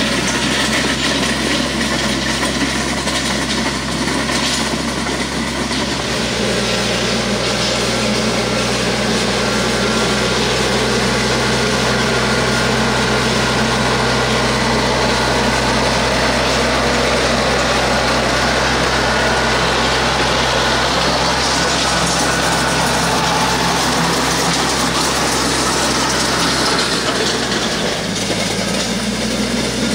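TYM compact tractor's diesel engine running steadily while pulling a steel land plane, whose blades scrape and drag loose gravel in a constant gritty rasp over the engine drone. The engine note shifts slightly about six seconds in and again near the end.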